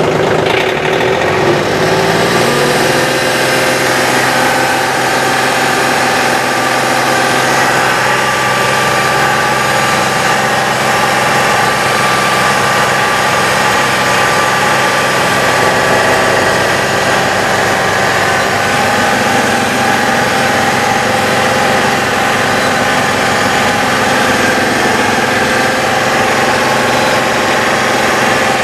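John Deere 2520 compact tractor's three-cylinder diesel engine revving up over the first couple of seconds, then running steadily at working speed while it drives the front-mounted 54-inch snowblower, heard inside the loud cab.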